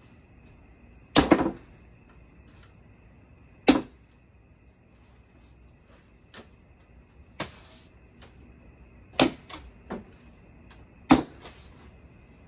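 Sharp wooden knocks and thuds on a cornhole board, about seven at irregular intervals, the first a double knock about a second in and the last loud one near the end.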